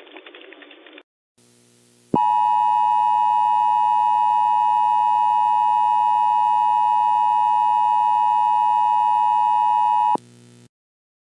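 Emergency Alert System attention signal: a loud, steady electronic tone starts sharply about two seconds in, holds for about eight seconds and cuts off suddenly. Just before it, a burst of harsh, static-like noise ends about a second in.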